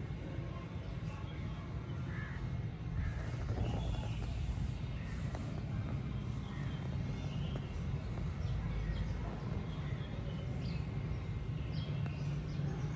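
Outdoor ambience: a steady low rumble with scattered short bird calls over it.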